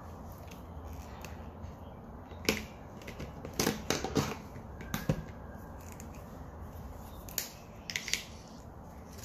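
Felt-tip marker being capped and swapped in a plastic marker case: a handful of short, sharp plastic clicks and taps, spread irregularly through the middle of the stretch.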